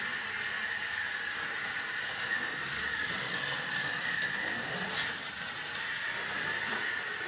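A steady mechanical whirring hum with a faint high whine held at one pitch, and a few soft clicks.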